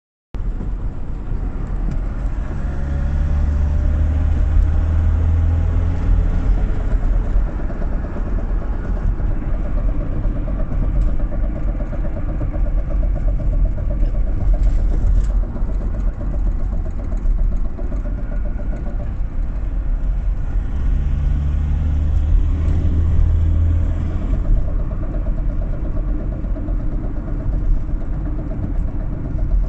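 Fiat Ducato van engine running with a knock: a fine, even, rhythmic tapping rides on the engine note. Twice the low drone swells for a few seconds, about two seconds in and again past twenty seconds.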